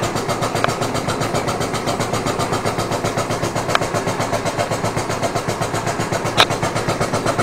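Model live-steam Jowett poppet-valve engine running steadily under steam, its exhaust beating about five times a second, with steam hissing and a few sharp clicks.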